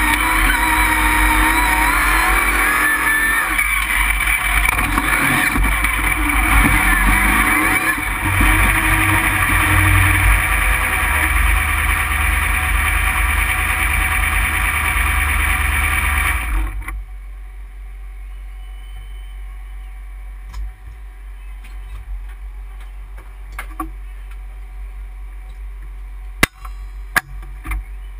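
Mud-bog truck's engine running loud and revving, heard from inside the caged cab, then cut off suddenly about seventeen seconds in. Afterwards it is much quieter, with a few sharp clicks and knocks near the end.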